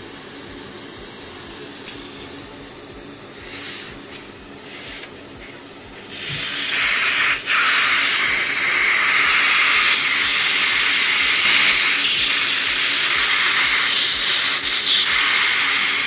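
Adhesive tape being peeled and pulled out of the end of a plastic vacuum cleaner hose tube. It starts about six seconds in as a loud, steady hiss, after a few small knocks from the knife and tube.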